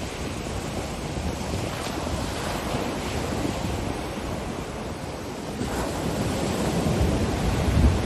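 Ocean surf washing onto a beach, a steady rush of breaking waves with wind rumbling on the microphone. A fresh wave breaks a little past halfway, and the surf grows louder toward the end.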